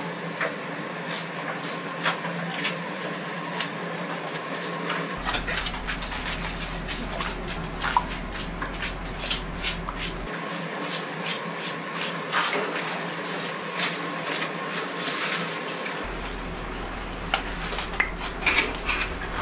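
Scattered clinks and taps of metal utensils against a steel candy cooling table as hot sugar syrup is poured and worked, over a steady workshop hum. The taps come thickest near the end.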